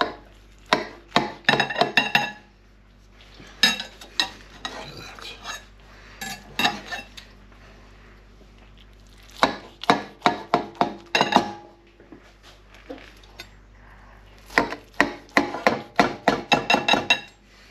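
Kitchen knife clinking and scraping against a glass dish while cutting a baked quiche into portions. The sound comes in several bursts of sharp clinks, some with a brief ring, separated by short pauses.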